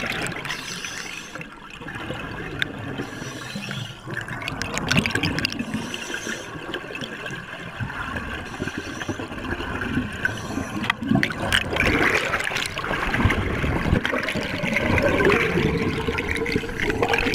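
Underwater recording of rushing water and streaming air bubbles around a scuba diver shooting up toward the surface in an uncontrolled ascent.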